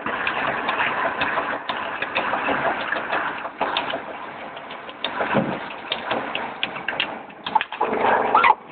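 Roll forming machine for gypsum hollow steel profiles running: a steady mechanical clatter with frequent sharp clicks and knocks.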